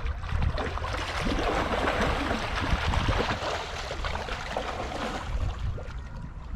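Wolf River water rushing and splashing, with a low rumble of wind on the microphone; the splashing swells in the middle and eases off after about five seconds.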